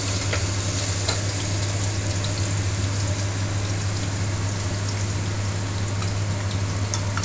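Hot oil sizzling steadily in a kadhai with a bay leaf and a green chilli frying in it, with a few faint pops and a steady low hum underneath.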